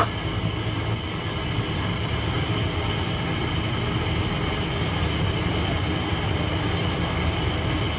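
A steady low mechanical rumble with a thin, steady high whine over it, and one sharp click at the very start.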